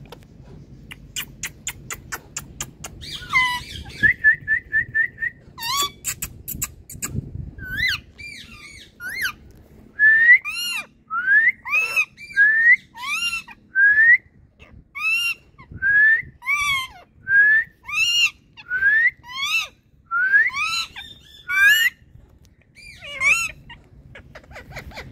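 Indian ringneck parrot calling: a few fast clicks and a quick chattering run of short notes, then a long series of short rising whistles, about one and a half a second.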